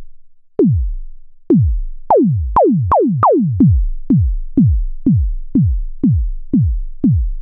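Synthesised kick drum from the Arturia JUN-6 V, a software emulation of the Roland Juno-6, playing its "90s Kick" preset: about fourteen single hits, each a short tone that drops fast in pitch into a low boom. The hits come roughly two a second, quicker and starting higher in pitch in the middle.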